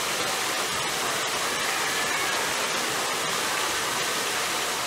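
Steady rushing water, an even continuous noise.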